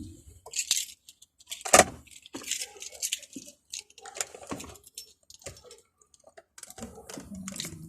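Irregular clicks, light rattles and rustles from small hard objects being handled, a jangle like keys.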